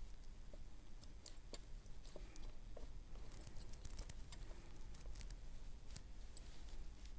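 Faint, scattered small clicks and scrapes of a lock pick working the pins of a Corbin Assa Abloy six-pin padlock under tension.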